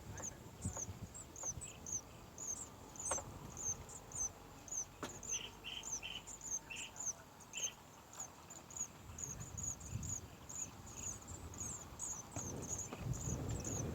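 Cricket chirping steadily, a high chirp repeated about three or four times a second, with a few shorter, lower chirps in the middle.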